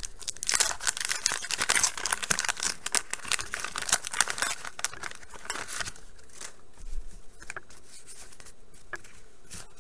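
Wax paper wrapper of a 1989 Bowman baseball card pack being torn open and crinkled for about six seconds. It is followed by softer scattered flicks as the stack of cards is handled.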